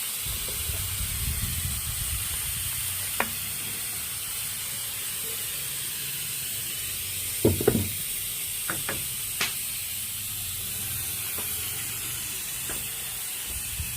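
Food sizzling in a hot pan, a steady hiss, broken by a few sharp clicks and knocks of a utensil against the pan. The loudest clicks come about seven and a half seconds in.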